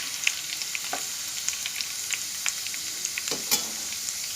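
Grated potato shreds deep-frying in hot oil in a kadhai: a steady sizzle with scattered crackles and pops. The frying has quietened, a sign that the shreds have given up their water and are close to crisp.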